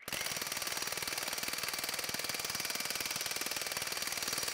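Ingersoll Rand W9691 1-inch cordless impact wrench hammering steadily with rapid impacts, starting abruptly, as it breaks loose and spins off a nut torqued to about 1,450 ft-lb.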